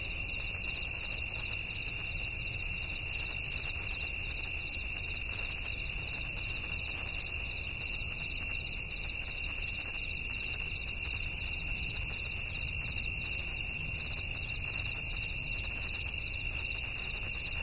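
Steady electronic hiss with a constant high-pitched whine, a fainter higher tone cutting in and out in short beeps above it, and a low hum underneath.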